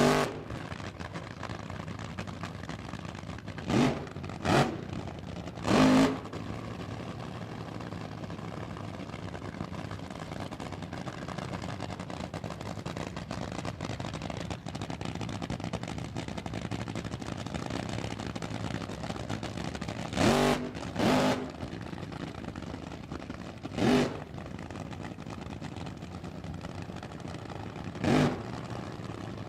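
Car engine idling steadily, revved in about seven short throttle blips: three in the first six seconds, four more in the second half.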